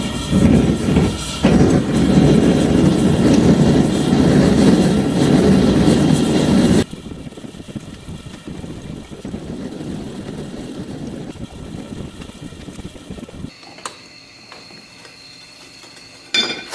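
Gas burner of a homemade melting furnace running with a steady rush while it heats a crucible of scrap aluminium. The rush drops to a much quieter level about seven seconds in and fades out further at about thirteen seconds, with a short knock near the end.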